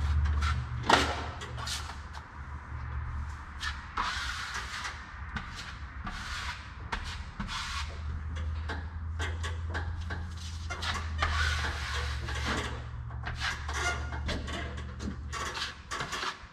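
Drywall taping knife scraping joint compound off a metal mud pan and wiping it along the wall joints: repeated short scrapes and clicks, with a low steady hum underneath.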